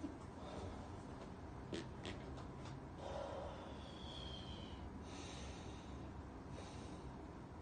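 Faint sounds of a person breathing out through the nose, with a few light clicks and a short high squeak that falls in pitch about halfway through.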